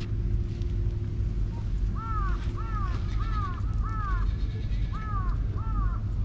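A crow cawing a quick run of about eight short calls, each rising and falling in pitch, starting about two seconds in, over a steady low background rumble.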